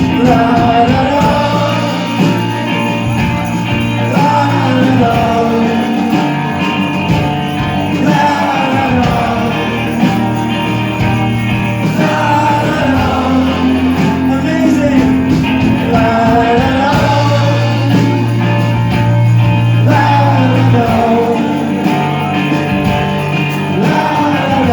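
Live rock band playing a Christmas song, with voices singing a wordless 'la la la' refrain over steady held bass notes.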